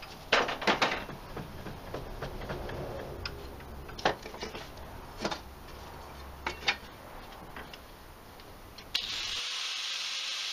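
Scattered knocks and clatter as a plywood jig and a metal turbine blade are set into a steel bench vise. About nine seconds in, a steady hissing rush starts: an angle grinder running at the blade.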